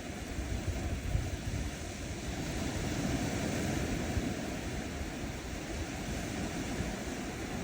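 Small ocean waves breaking and washing up on a sandy shore, a steady wash of surf that swells a little about three to four seconds in.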